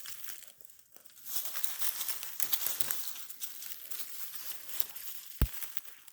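Brush, leaves and vines crackling and rustling as someone pushes on foot through dense, tangled undergrowth, with many small snaps and one sharp crack about five and a half seconds in.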